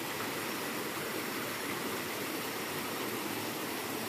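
Steady rushing of a river flowing, an even, unbroken water noise.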